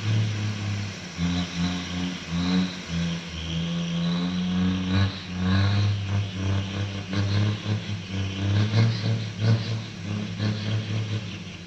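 A heavy vehicle's engine running, its revs rising and falling unevenly.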